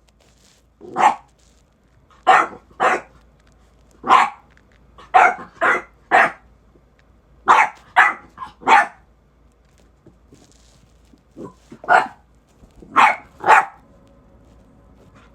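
American bully puppy barking: about a dozen short, sharp barks in irregular bunches of two or three, with a pause about two thirds of the way through.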